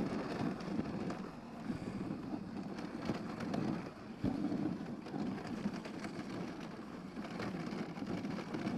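Dog sled runners sliding over hard snow and ice: a steady rumbling scrape with occasional small knocks, and wind on the microphone.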